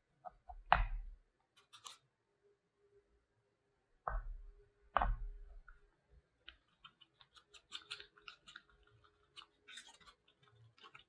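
A few knocks as cups are set down on a wooden board, the loudest about a second in, then a thin metal spatula stirring and scraping in a paper cup as a run of small clicks and scrapes.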